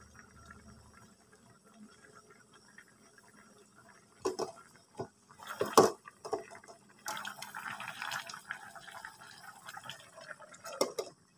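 Aluminium wok lid knocking and clanking against the wok rim as it is lifted off with a cloth, then the crab sauce bubbling and dripping in the uncovered wok for a few seconds, and another clank near the end as the lid goes back on.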